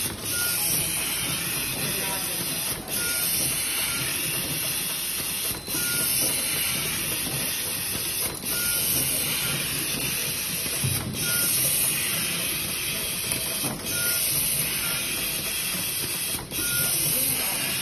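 Automatic screwdriving machine with a screw feeder running in a steady cycle: a constant high hiss, broken about every three seconds by a brief click and a short high tone as each cycle repeats.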